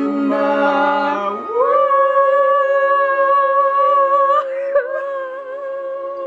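Two women's voices singing a cappella: a couple of short notes, then one long note held for the rest, the drawn-out final note of the song, sung with a hum-like tone.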